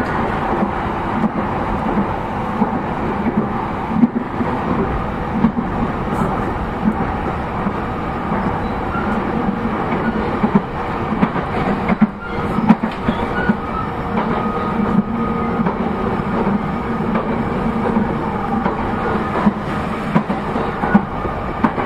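Interior running sound of a JR East E233-0 series electric train, heard from inside the motor car: steady rolling and motor noise with the wheels clacking over rail joints every few seconds.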